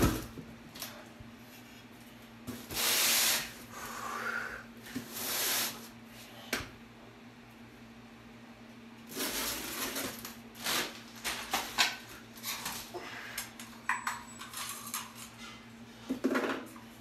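Handling noises around a ceramic lavatory basin lying on cardboard packing: several short rustling, scraping bursts and scattered small clicks and knocks, over a steady low hum.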